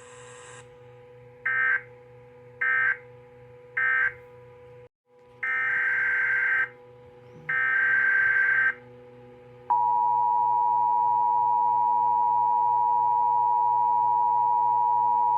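Emergency Alert System data and attention tones. Three short screechy digital data bursts come first, the end-of-message code closing the previous warning. After a brief dropout, two longer bursts of the same kind follow: the header of the next alert. From about ten seconds in, the steady two-tone attention signal sounds, over a low background hum.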